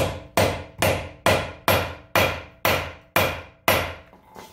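Hammer blows on a grooved lug-nut extractor socket, about two a second, nine in all, driving the 21 mm socket onto a rounded 19 mm lug nut so its grooves bite. Each blow rings briefly, and they stop a little before the end.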